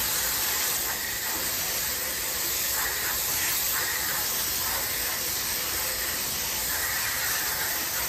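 Steady hiss of a hose spray nozzle as a jet of water sprays onto a heat pump's condenser coil fins from inside the unit. This is the first rinse, pushing debris back out through the coil.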